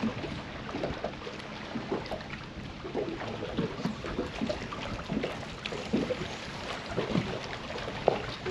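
Small waves lapping and slapping against a fishing boat's hull in irregular little splashes, over a steady hiss of wind.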